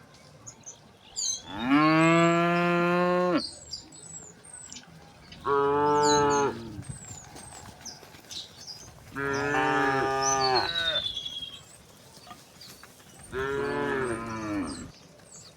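Cows mooing four times, each moo a long drawn-out call of one and a half to two seconds, the first the loudest. Small birds chirp in the gaps between the moos.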